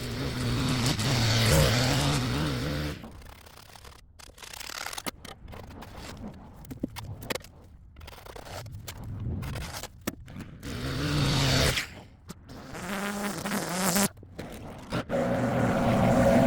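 Small petrol engine of outdoor power equipment running in spurts, rising and falling. In between come quieter, choppy scraping and clicking sounds.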